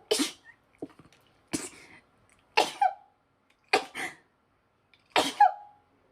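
A woman sneezing repeatedly in a sneezing fit: five sneezes about a second apart, several of them double, each a sharp burst with a short voiced tail.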